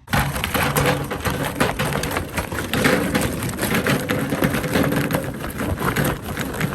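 Kingsford charcoal briquettes pouring out of the bag into a charcoal grill: a loud, dense, continuous clatter of briquettes rattling onto one another.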